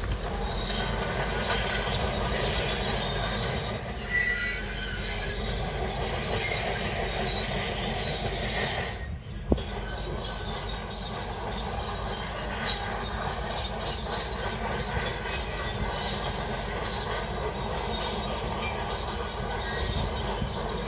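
Shantui DH17C3 crawler bulldozer working, its steel tracks squealing and clattering over its steady diesel engine. There is a brief dip and a single sharp click about nine and a half seconds in.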